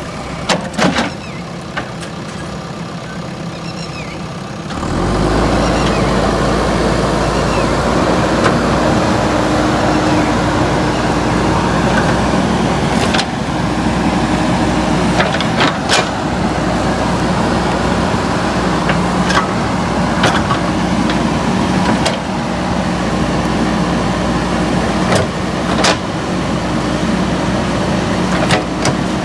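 JCB 3DX backhoe loader's diesel engine running, rising to a louder working speed about five seconds in, with sharp knocks and cracks scattered through as it works.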